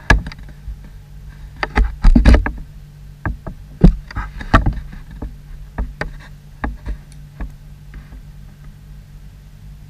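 Handling noise of hands moving a small fishing hook and picking up a pair of scissors close to the microphone: irregular sharp clicks and dull knocks, busiest in the first half and dying away near the end, over a steady low hum.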